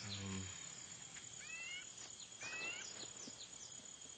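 Faint jungle ambience: a steady high insect drone with a run of short, quick, falling chirps, and two bird calls with curving notes about a second and a half and two and a half seconds in. A brief low hum sounds in the first half second.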